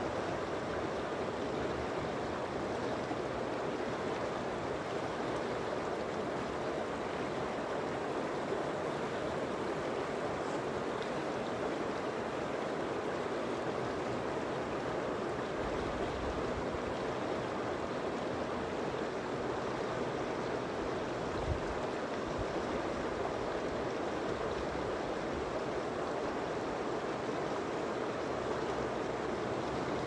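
Shallow river running over and between rocks in riffles, a steady rushing of water. One brief low thump about two-thirds of the way through.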